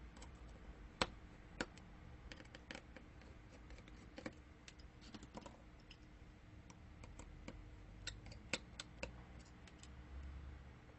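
Small repair tools clicking and tapping on an opened iPhone 7 Plus's internal parts while the battery is being disconnected: faint, irregular light clicks, a dozen or so, scattered through.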